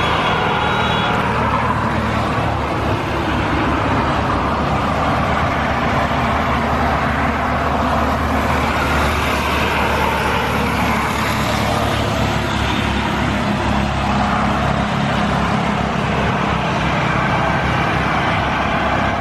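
CASA C-295's two Pratt & Whitney PW127G turboprop engines running at taxi power, a steady propeller drone with a low engine hum as the aircraft rolls slowly.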